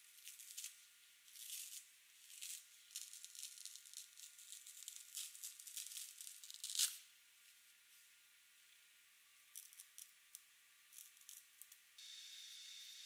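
Faint tearing as the green scouring pad is peeled off a kitchen sponge: a series of short rasping rips, the sharpest near the middle as the layers come apart. Near the end, a steady scratching of a felt-tip marker drawn over the scouring pad.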